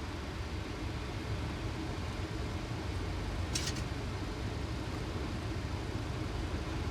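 Steady flight-deck noise of a Boeing 737 on final approach: a constant rush of airflow and engine hum with a low drone. A brief faint click sounds about three and a half seconds in.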